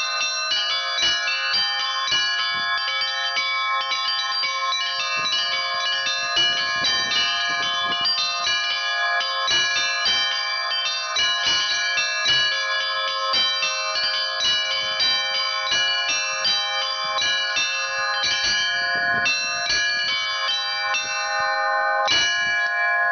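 A set of church bells hung on a porch belfry, rung by hand in Russian Orthodox style: many bells struck in quick, uneven succession so their high tones overlap. Near the end the striking stops and the bells ring on.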